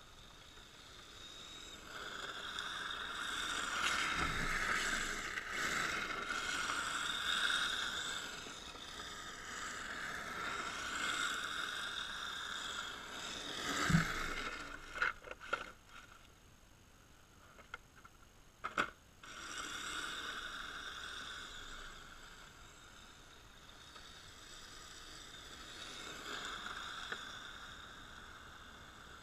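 Electric RC drift car (HPI Sprint 2 Drift) driving: a high motor and gear whine that swells and fades several times as the car accelerates and slides around, with a few sharp knocks about halfway through.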